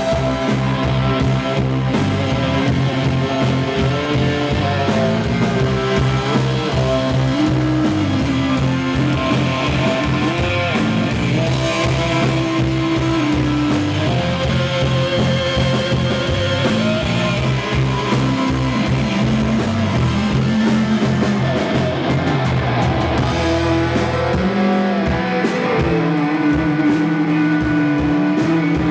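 A live rock band playing a blues-rock song, with guitar to the fore over bass and a drum kit.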